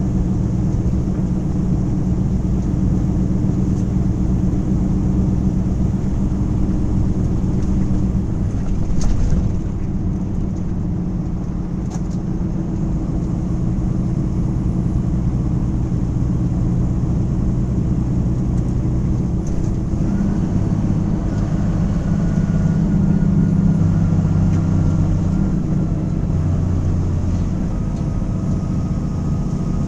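Truck engine and road noise heard inside the cab while driving: a steady low engine drone that changes pitch about twenty seconds in, with a couple of short clicks along the way.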